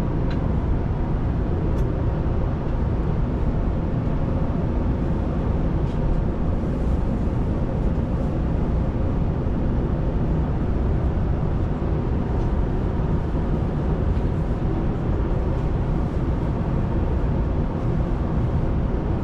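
Steady cabin noise of a Boeing 787-9 airliner in flight: a constant low rush of airflow and engine noise, with a faint steady hum through it.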